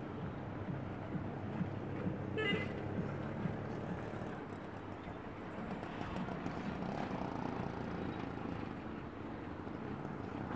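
A steady low rumble of a running engine, with a brief high toot about two and a half seconds in.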